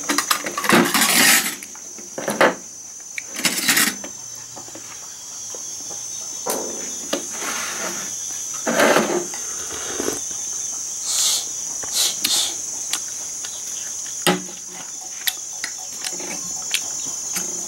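A steady, high-pitched trill of insects runs throughout. Over it come scattered short clinks and scrapes of a spoon and fingers against ceramic bowls and a metal tray as food is eaten.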